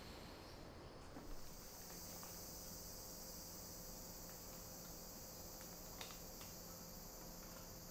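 Faint, steady high-pitched drone of insects that fills in about a second in and holds, with a couple of light clicks of tableware, one about a second in and one about six seconds in.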